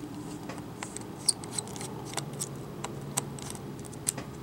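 Small, irregular clicks and ticks of a small Phillips electronics screwdriver working a tiny screw on a laptop motherboard, its metal tip and shaft knocking against the screw and board. The screwdriver is struggling to grip the screw, which is stubborn.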